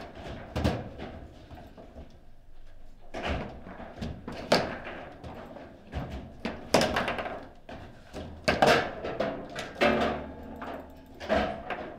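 Foosball table in play: quick, irregular knocks of the ball against the plastic men and the table, and of the rods being jerked and spun, with several sharp, loud shots.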